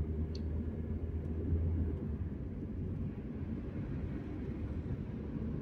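Cabin noise of a Daihatsu Terios driving: a steady low rumble of engine and tyres on the road, heard from inside the car. The deepest hum eases off about two seconds in.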